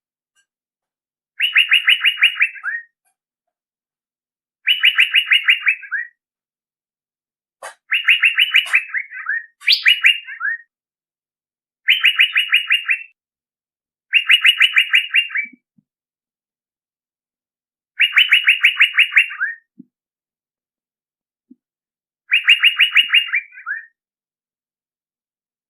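Male Asian fairy-bluebird calling: a rapid run of short notes lasting just over a second, some runs ending in a short falling slur, repeated eight times with uneven pauses.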